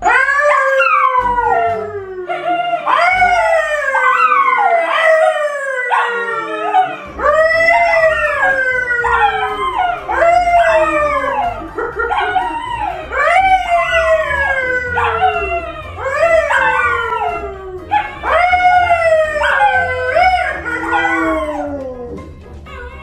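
Yellow Labrador and brown poodle howling together with a man howling along: overlapping long howls, one after another, each rising and then sliding down in pitch, dying away near the end.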